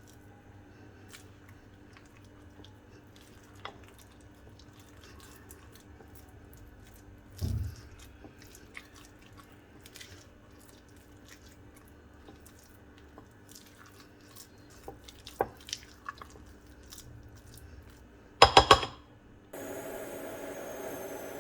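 Kitchen handling sounds: faint scattered clicks and taps, a dull thump about seven seconds in, and a quick clatter of loud knocks near the end, after which a steady hiss starts.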